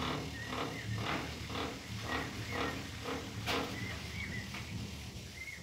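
Hydraulic tipping bed of an electric loader rickshaw coming down: a steady low hum with a squeaky groan repeating about twice a second.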